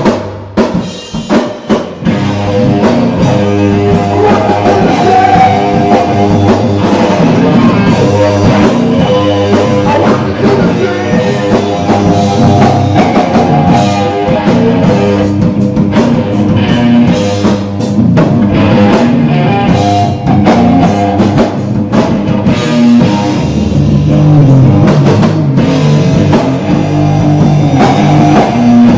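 Rock band jamming a hard rock riff on electric guitar and drum kit, with a short break in the playing about a second in before the band comes back in.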